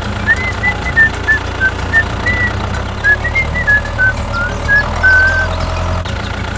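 A small vehicle engine running steadily, with a string of short, high beeps that wander up and down in pitch over most of the stretch.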